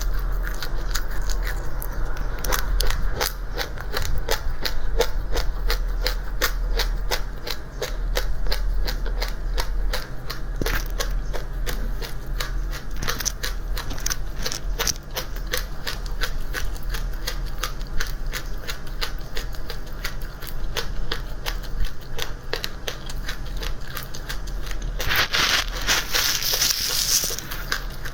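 Crunchy seeds being chewed close to the microphone: a dense, fast crackling of small clicks throughout, with a louder hissing rustle near the end.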